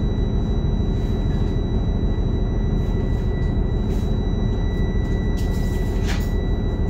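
2009 New Flyer DE41LFR hybrid bus standing at idle: its Cummins ISL diesel runs with a steady low rumble and a steady high whine over it. A brief hiss comes near the end.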